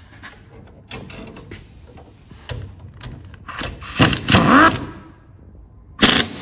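Air-powered wrench on a socket, driving a leaf-spring bolt in short rattling bursts, one about four seconds in and another starting near the end, with lighter tool clicks and handling between.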